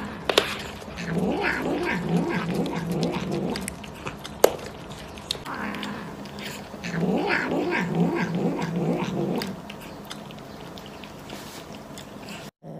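Cats making drawn-out, wavering growling yowls while eating, in two spells of about three seconds each. There is a single sharp click between them.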